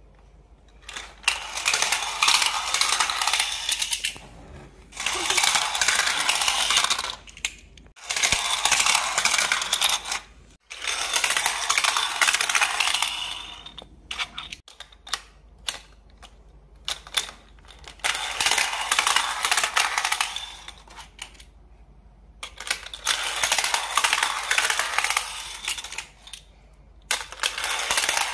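Small plastic toy cars rolling and clattering down the stacked zigzag ramps of a plastic race-track toy. There are about seven separate runs, each a rapid rattle of two to three seconds with short pauses between.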